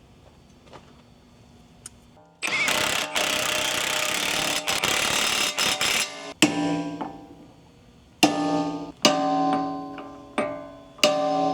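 Plucked guitar music: single notes and chords ring out and die away one after another. Before it, about two seconds in, a few seconds of loud, steady rushing noise with some knocks in it.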